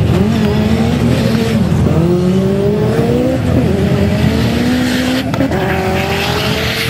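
Ford Escort WRC's turbocharged Cosworth four-cylinder racing engine under hard acceleration, its note climbing steadily and dropping back at gear changes about two and five seconds in.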